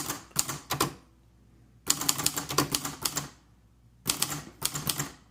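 Royal Sprite manual typewriter being typed on during a test run: fast runs of key strikes in three bursts, with short pauses between.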